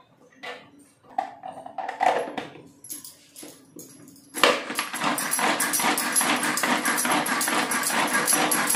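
Kitchen food chopper chopping onions: a dense, fast, steady rattle starts about four seconds in. A few brief, scattered sounds come before it.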